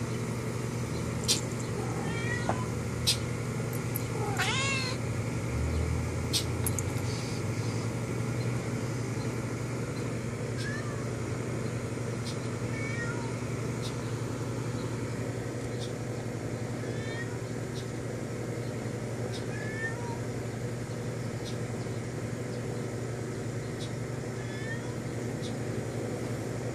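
Domestic cat meowing: one drawn-out meow about four seconds in, with short faint chirps scattered through the rest, over a steady low hum.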